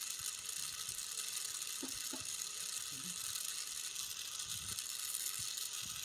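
Gas torch flame hissing steadily while heating an aluminium radiator for soldering, with a few faint knocks.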